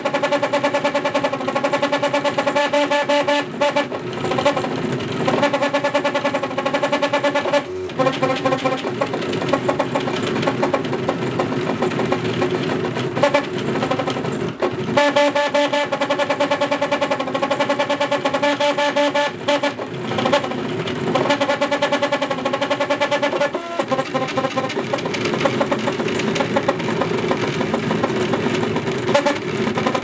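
Wooden-frame 3D printer's stepper motors whining while printing: steady pitched tones that hold for a few seconds, then jump or glide to new pitches as the moves change speed and direction.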